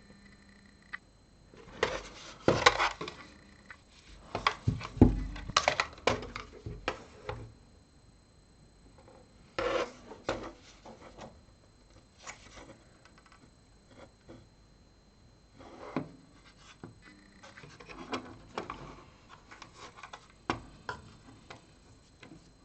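Irregular knocks, clicks and short rubbing or scraping sounds of a hard plastic radio and tools being handled on a workbench, loudest in clusters at about two, five and ten seconds in.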